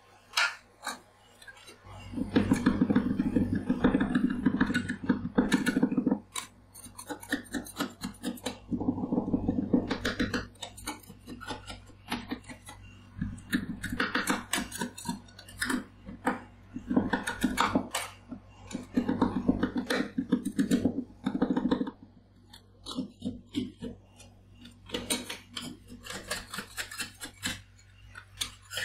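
Two metal spatulas chopping blueberries and cream against the frozen steel plate of a rolled-ice-cream pan, with a steady low hum underneath. The chopping starts about two seconds in and comes in rapid clattering runs of a few seconds with short pauses.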